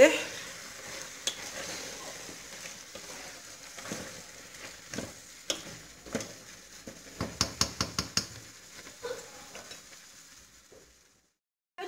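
Meat, vegetables, lentils and rice sizzling as they fry in a stainless steel pot, stirred with a wooden spoon that scrapes and knocks against the pot. A quick run of knocks comes about seven to eight seconds in, and near the end the sound fades away to silence.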